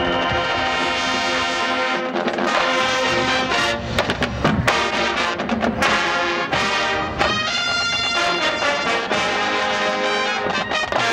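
Marching band playing, its brass section holding full chords over the drumline, with several sharp drum hits through the middle of the passage.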